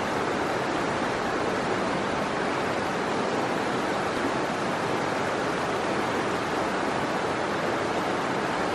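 Shallow, rocky creek running over stones in riffles: a steady, even rush of water.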